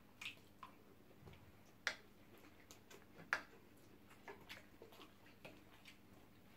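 Quiet eating sounds: scattered soft clicks and smacks of chewing and of cutlery against plates, with two sharper clicks about two seconds and three seconds in.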